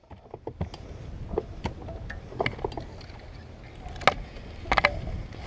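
Scattered clicks and knocks from handling a baitcasting rod and reel in a small aluminum boat, over a low steady rumble. The loudest are a sharp knock about four seconds in and a short rapid run of clicks near the end.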